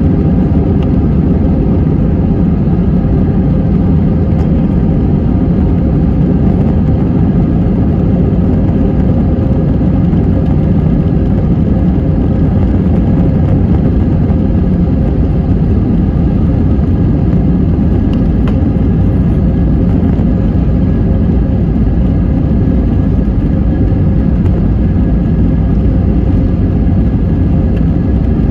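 Steady cabin noise of an Airbus A320-200 heard from a window seat over the wing: the engines' drone and a low rumble, with a faint steady hum, holding an even level throughout.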